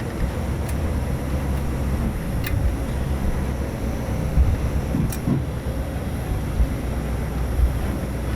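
Steady low engine rumble of a hunting buggy, with a few faint light clicks.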